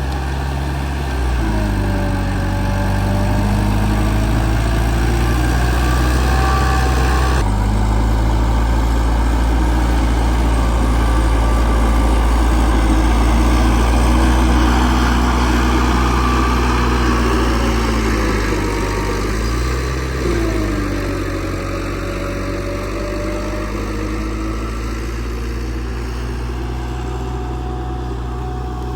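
Heavy diesel earthmoving machinery running, its engine speed rising and falling several times over a deep steady hum. The sound changes abruptly about seven seconds in.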